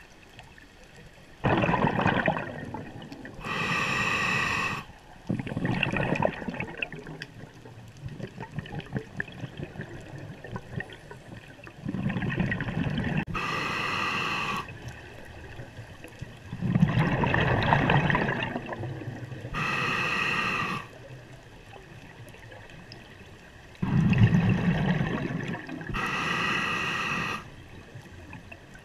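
Scuba diver breathing through a regulator, four breaths about six seconds apart. Each breath is a rumbling burst of exhaled bubbles, then a short hissing inhale through the demand valve.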